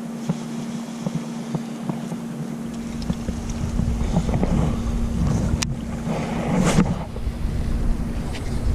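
Wind on the microphone over running creek water, with a steady low hum and a few faint clicks; the rumble picks up about a third of the way in.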